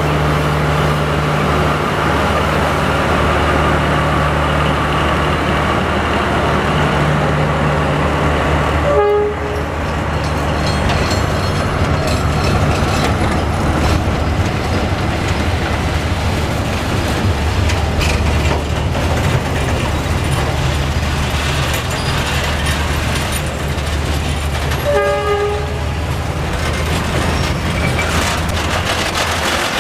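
D19E diesel-electric locomotive's engine drones steadily as the freight train pulls out. Then the loaded container and freight wagons roll past, their wheels rumbling and clattering on the rails. Two short horn toots come about 9 seconds in and again near 25 seconds.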